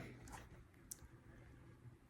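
Near silence: room tone with a few faint clicks, the clearest about a second in.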